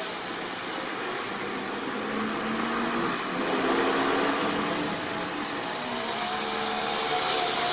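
Toyan FS-S100 single-cylinder four-stroke overhead-cam nitro engine in an RC crawler, running and revving up and down, its pitch rising and falling as the car drives; the engine is still cold. A truck passes on the road around the middle.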